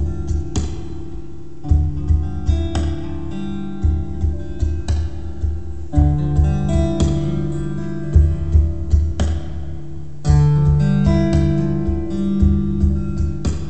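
Acoustic guitar played through a Boomerang looper pedal: plucked and strummed notes over sustained bass notes, with the looped phrase coming round again about every four seconds.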